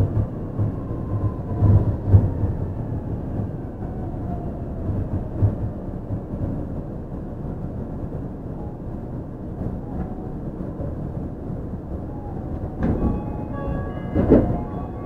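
Yui Rail 1000-series monorail car running, its Hitachi IGBT VVVF inverter giving a thin whine that falls in pitch over the first few seconds as the train slows, over a steady running rumble. Near the end come a few heavy thumps and several short high tones.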